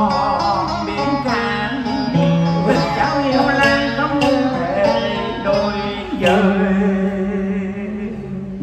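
Live cải lương theatre music: plucked-string accompaniment over held low notes, with wavering sung or bent melodic phrases.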